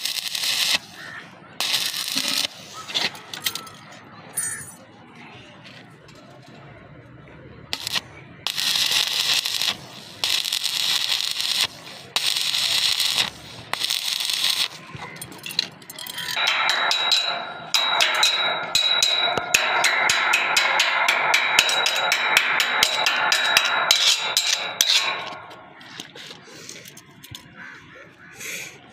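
Stick (shielded metal arc) welding arc crackling as a rod is run around a pipe T-joint: several short runs of sputtering in the first half, then a longer steady crackle with a faint high whine through much of the second half that stops a few seconds before the end.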